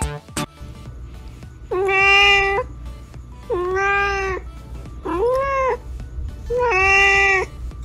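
A cat meowing four long, drawn-out meows, each close to a second, about one and a half seconds apart. The first starts about two seconds in.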